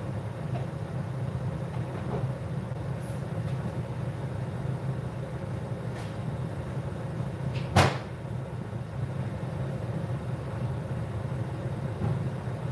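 Steady low hum, like a running kitchen fan, with one sharp knock about eight seconds in.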